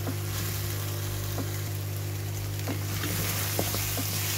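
Chicken and qorma masala sizzling in oil in an aluminium pan, with a wooden spoon scraping and knocking against the pan now and then. The masala has been fried to the bhuna stage, where the oil starts to separate out.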